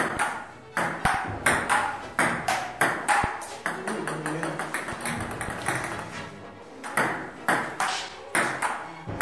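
Table tennis rally: the celluloid ball clicks off the paddle and bounces on the table in a quick, uneven string of hits, several a second, thinning out for a couple of seconds in the middle.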